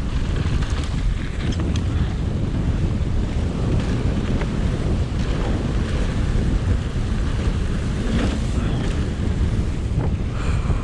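Strong wind buffeting the microphone, a steady loud rumble, with a few light clicks and rattles from the mountain bike rolling down the trail.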